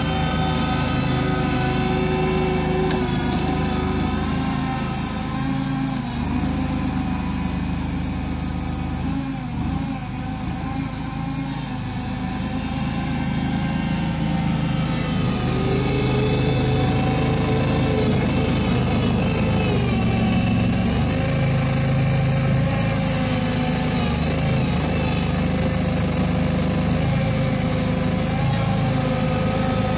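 Small engine of a home-made wheel loader running steadily under working load as it pushes and lifts snow; its note sags a little for several seconds in the middle and then picks up again.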